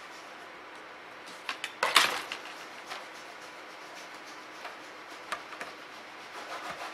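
Small metal clicks and taps of a Phillips screwdriver and tiny screws as the display's mounting screws are set into the laptop lid corners, with a sharper clack about two seconds in and a few light ticks after.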